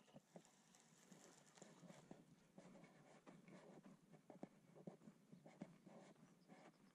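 Faint footsteps on a dry dirt path, about two steps a second, with a light scuffing and crunch between them.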